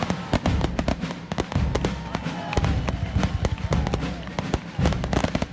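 Aerial fireworks shells bursting in quick succession, with many sharp bangs and crackles over a low rumble.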